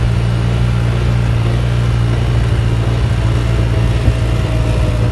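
Quad bike (ATV) engine running steadily while under way, a low even note that holds its pitch, with one small knock about four seconds in.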